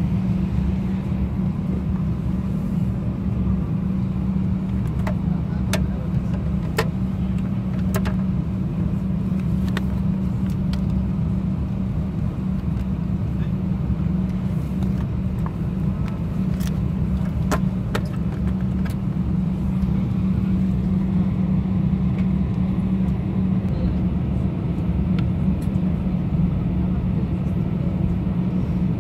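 Steady low cabin drone inside an Airbus A319 on the ground, with a constant hum underneath it. A handful of light clicks come in the first third and again a little past halfway.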